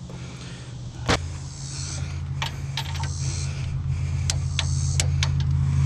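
Hand tools clinking on the strut's upper mounting nuts: a handful of sharp, irregular metallic clicks, over a steady low hum that slowly grows louder.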